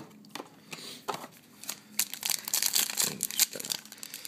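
Plastic trading-card pack wrapper being handled and torn open: crinkling and tearing, starting with a sharp click and growing into a dense crackle from about two seconds in.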